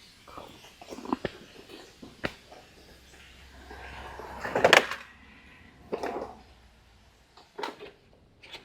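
Metal knocks, clanks and scraping from prying a rear CV axle out of an ATV. The loudest clank comes about four and a half seconds in, with smaller knocks before and after.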